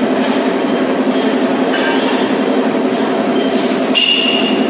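Metal lathe running with a steady mechanical drone, the workpiece spinning in a four-jaw chuck. A sharp metallic clink rings out about four seconds in, as the operator's hand works the tool post.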